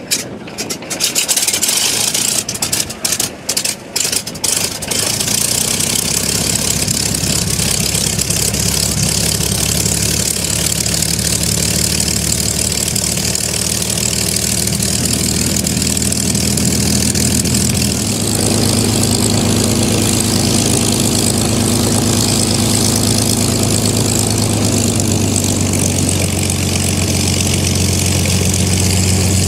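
North American P-51C Mustang's Packard Merlin V-12 and propeller starting: several seconds of ragged, uneven firing with gaps as the engine catches, then running steadily at idle. Its note changes about two-thirds of the way through.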